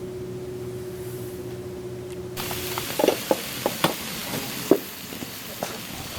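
A steady low hum with a faint held tone, then abruptly, about two and a half seconds in, food sizzling in a hot pan, with a steady hiss and scattered sharp pops and crackles.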